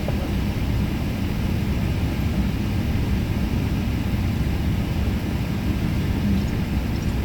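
Steady cabin noise of an airliner taxiing after landing: a constant low rumble with hiss over it, from the idling engines and cabin air.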